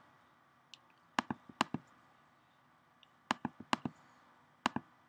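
Computer mouse clicking in short runs of sharp clicks: a few about a second in, another run around three and a half seconds, and a pair near the end.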